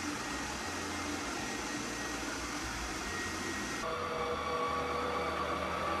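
2Nice Freebot WT10 robot vacuum running: a steady whirring hiss from its suction motor with a faint high whine. About four seconds in it cuts abruptly to an Ecovacs robot vacuum running, a lower, duller hum with several steady tones.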